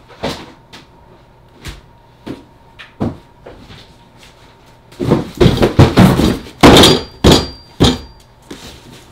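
Cardboard shipping boxes being handled and set down on a table: a few scattered knocks, then a dense run of loud thuds and knocks from about five seconds in.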